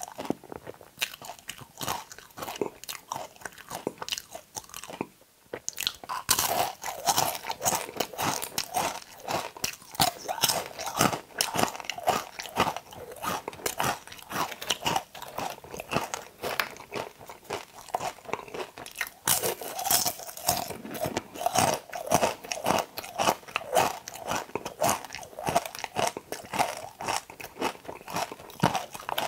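Close-miked crunching and chewing of okra pods: a dense run of crisp, crackly crunches. Softer for the first few seconds, louder from about six seconds in, with a fresh burst of crunching near twenty seconds.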